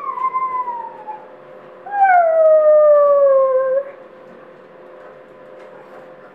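Boxer puppy howling: two long cries that fall in pitch, the second starting about two seconds in, longer and louder than the first.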